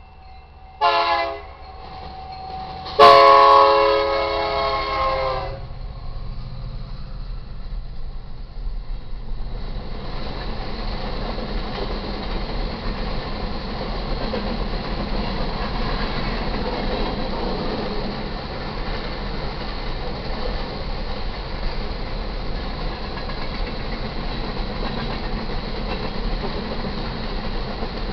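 BNSF SD70MAC diesel locomotive's air horn sounding for the grade crossing: a short blast about a second in, then a louder long blast at about three seconds. The fast coal train then passes, its steady rumble of wheels on rail building over the next few seconds and holding.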